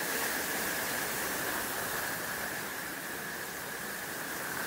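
Swollen monsoon stream rushing in a torrent over rocks: a steady, even rush of water, with a faint high whine running through it.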